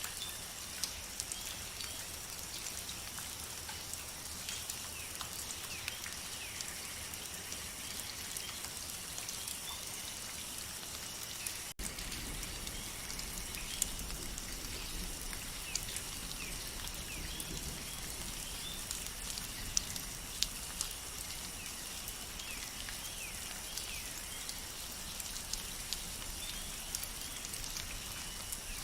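Steady rain in a forest, with many individual drops ticking close by over a constant high-pitched hum. A brief cut about twelve seconds in, after which a low rumble joins the rain.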